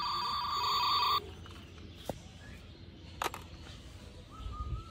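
Toy walkie-talkie's electronic ringtone, a pulsing, warbling high tone that cuts off suddenly about a second in. Then a couple of faint clicks, and a short faint whistle-like tone near the end.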